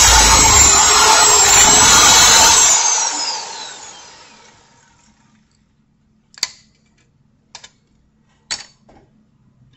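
A corded electric drill runs loudly as it bores into the base of a Hot Wheels toy car to get the base off. About three seconds in the drill is released and spins down with a falling whine. Then come a few sharp clicks and taps.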